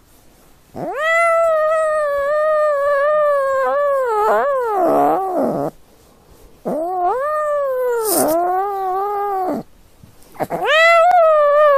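Kitten giving long, drawn-out wailing meows, three in a row, each several seconds long and wavering in pitch before it falls away.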